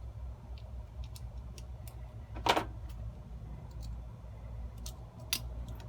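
Scattered small metallic clicks and taps from handling a Schlage door-knob lock cylinder and its parts, the loudest about two and a half seconds in and another near the end, over a low steady hum.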